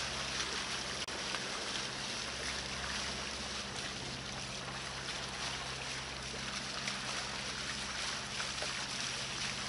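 Sailing catamaran under engine on a flat calm sea: a steady low engine hum with the even hiss of water running past the hulls.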